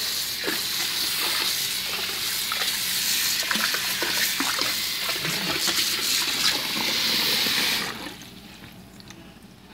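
Water running from a tap into a bathtub, a steady rush with small splashes, that stops sharply about eight seconds in.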